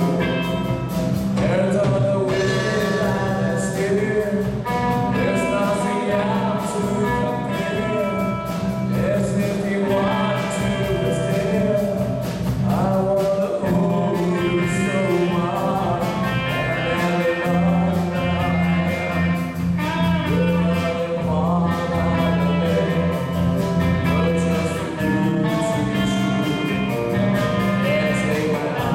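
Live rock band playing a song: a male lead singer over electric guitars and a drum kit.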